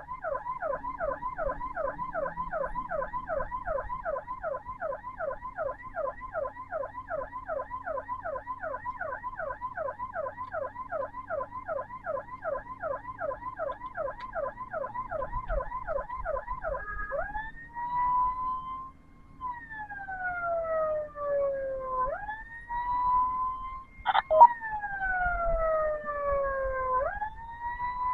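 Ambulance siren on a fast yelp, about three to four sweeps a second, switching after about seventeen seconds to a slow wail that rises and falls every five seconds or so. A sharp knock near the end of the wail is the loudest moment, and a low vehicle rumble runs beneath.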